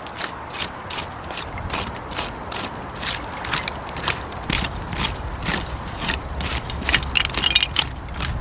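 Hand digging into a bankside of earth and old bottle debris, the tool scraping and striking in a steady run of strokes about two or three a second, with a burst of sharper clinks near the end.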